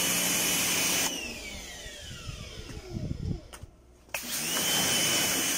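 High-pressure washer spraying water onto a metal-mesh air-handler filter, then cut off about a second in: the machine's whine falls away as it winds down to near silence. Just past four seconds it starts again, the whine rising quickly back to a steady pitch as the spray resumes.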